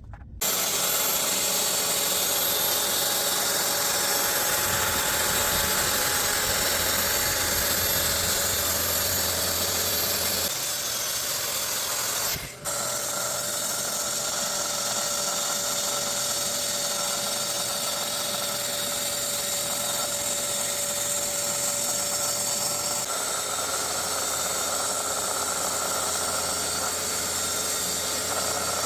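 Woodworking power tool running steadily under load while maple boards are milled. It starts about half a second in, and its tone shifts abruptly twice.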